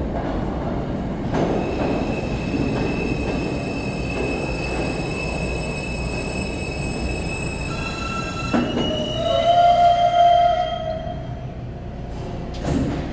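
R160 subway train pulling into a station and braking to a stop: a low rumble with a high, steady squeal, then a louder, lower-pitched squeal about nine seconds in as it slows to a halt. A short burst of noise comes near the end.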